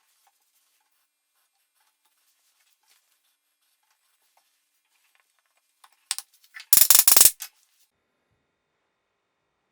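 A few light clicks, then a brief loud clatter of small hard objects knocking together, over within about a second and a half.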